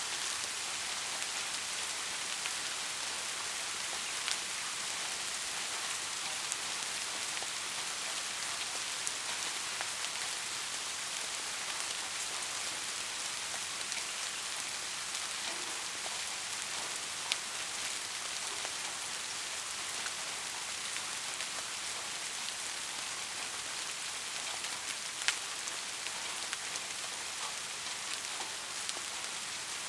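Steady rain falling in an even hiss, with a few louder single drops ticking now and then, the sharpest about 25 seconds in.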